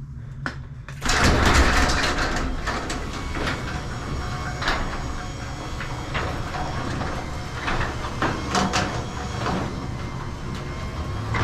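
Genie 1028 belt-drive garage door opener starting up about a second in and running steadily as it raises the door, with clicks and rattles from the door and rail.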